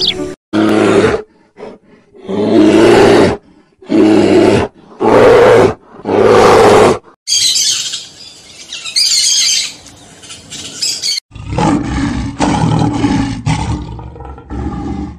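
Five loud, separate calls from peafowl, then a stretch of high-pitched bird chatter, then from about eleven seconds in a male lion growling in low, rough pulses.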